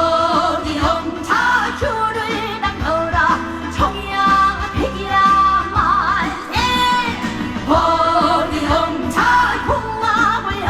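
A woman sings a Korean trot song live over amplified band backing. Her voice wavers with vibrato on the held notes.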